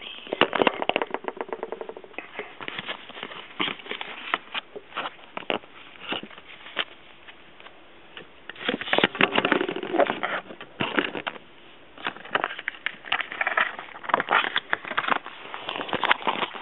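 Paper and plastic packaging rustling and crinkling as items are handled, with irregular clicks and scrapes from the hands and the hand-held camera. A fast run of small ticks comes about a second in, and a denser stretch of rustling comes about nine seconds in.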